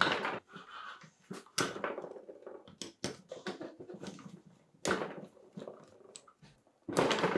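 Socket wrench ratcheting and clanking in several short bursts while undoing bolts on the casing of a 1969 Motobecane moped's two-stroke engine.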